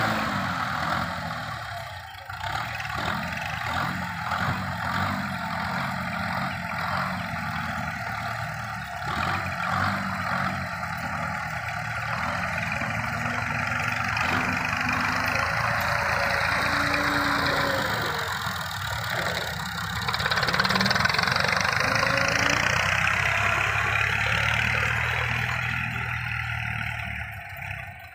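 Belarus tractor's diesel engine running under heavy load, hauling a loaded tipping trailer bogged in deep sand. The engine grows louder and higher in the last third.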